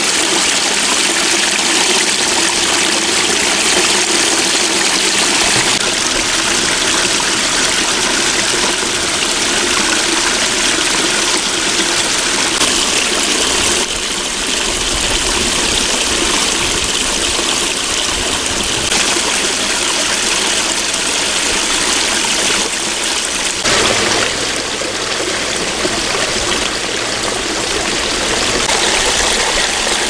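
A small waterfall splashing over rocks into a shallow stream, a steady loud rush of running water that shifts a little about 14 and 24 seconds in.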